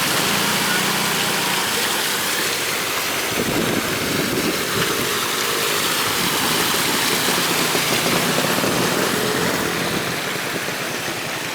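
An engine running over a steady rushing hiss.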